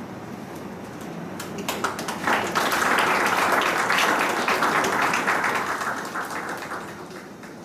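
Audience applauding: a few scattered claps about a second and a half in, swelling into full applause, then dying away near the end, over a steady low room rumble.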